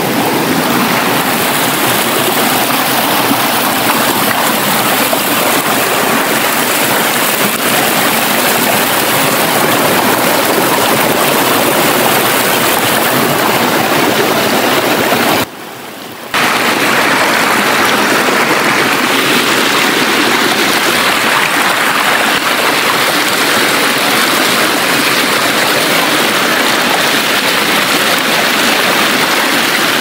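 Shallow rocky stream running over a small rock ledge and through riffles: a loud, steady rush of water. The sound drops away for under a second about halfway through, then carries on as before.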